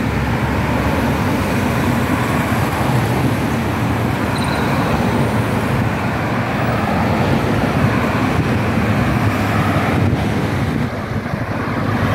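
Steady road traffic: a stream of cars driving past close by, engines running and tyres on the asphalt. It eases slightly for a moment near the end.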